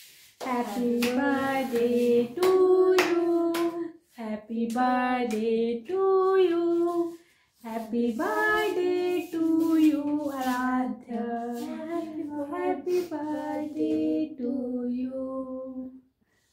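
A group of women and children singing a birthday song together in several phrases, with brief breaks between lines.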